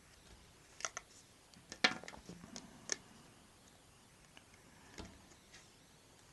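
Small sharp clicks and taps of a disassembled iPhone 3GS being handled, fingers working its metal frame and loose screen assembly: a quick cluster of clicks from about one to three seconds in, then one more tap near five seconds.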